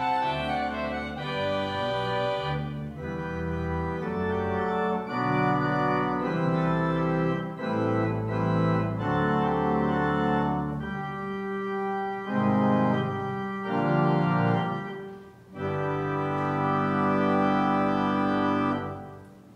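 Organ playing a slow piece in held chords that change every second or so; the music dies away near the end.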